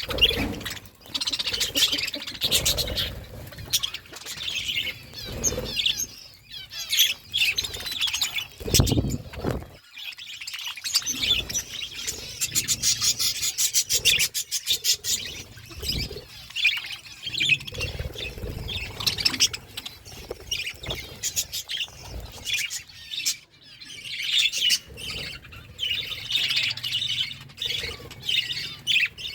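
A flock of budgies chirping and chattering continuously, with a run of rapid clicks in the middle.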